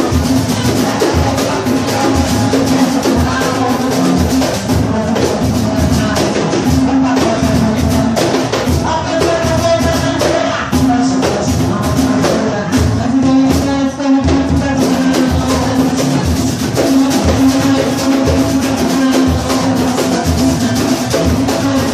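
Samba batucada: a percussion ensemble of drums and shakers playing a steady, driving rhythm.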